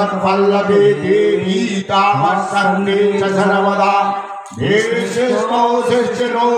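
Men chanting a Hindu mantra in unison into microphones, on long held notes, with a brief pause for breath about four and a half seconds in.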